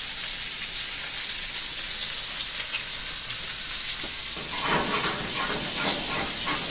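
Shrimp and freshly sliced garlic frying in hot oil in a pan, a steady sizzling hiss. About four and a half seconds in, a run of louder, uneven crackles joins it.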